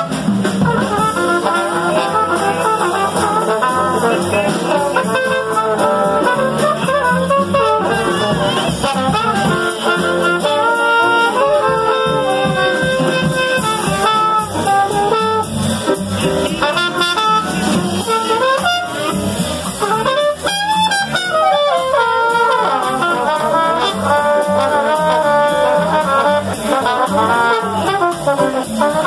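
Live small-group jazz: trombone and trumpet playing melody lines together over acoustic bass, drums and piano.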